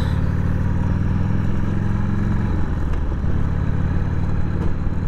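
Harley-Davidson Sportster's V-twin engine running under way as the motorcycle rides along, a steady low engine note that dips briefly a little past halfway.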